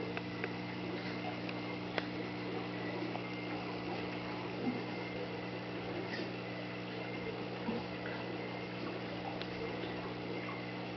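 Steady electrical hum of aquarium equipment, such as an air pump or filter, over a soft hiss of moving water, with a few faint clicks.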